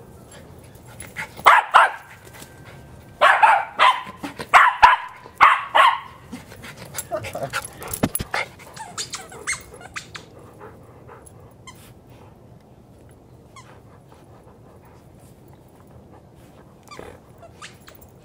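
Dog barking in play: one bark about a second and a half in, then a quick run of about five barks, followed by quieter scuffling and clicks from the dogs tussling.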